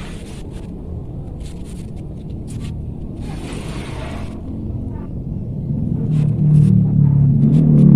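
Low rumble of a handled microphone, with bursts of rustling and scraping and scattered clicks, as of someone climbing among a tree's branches and leaves. Background music swells in over the last couple of seconds.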